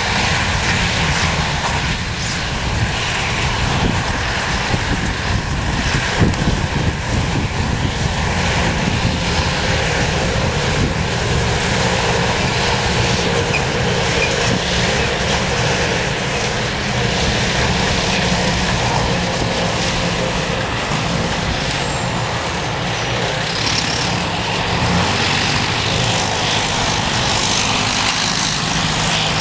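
Heavy farm machinery, a tractor or forage harvester diesel engine, running steadily and loudly under a dense mechanical noise, with no pause.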